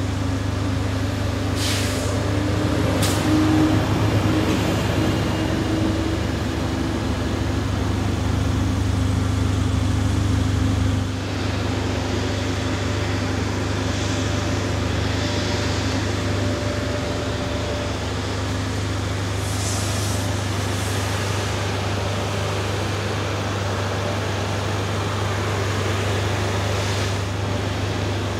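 A motor vehicle's engine idling steadily with a constant low drone, which eases slightly about eleven seconds in.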